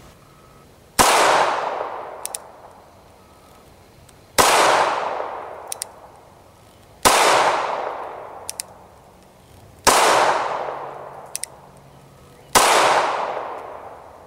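Five gunshots from an I.O. Inc. Hellcat .380 ACP micro pistol, fired slowly about one every two to three seconds, each report trailing off over a second or so.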